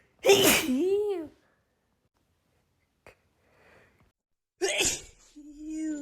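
A woman sneezing twice in a pollen-allergy sneezing fit: a loud voiced sneeze about a third of a second in, and another near the end, followed by a short voiced sound.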